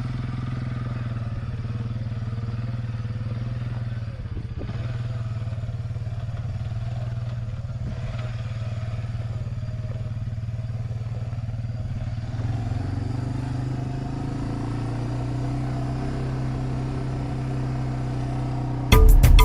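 Suzuki 400 ATV's single-cylinder four-stroke engine running steadily while riding, its pitch shifting slightly a few times. Loud music cuts in abruptly at the very end.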